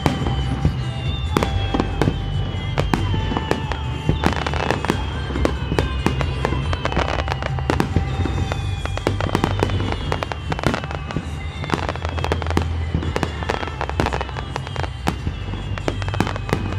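Fireworks display: a rapid, continuous barrage of aerial shell bursts, a star mine, with many sharp bangs over music. Falling whistle-like tones repeat about every second and a half.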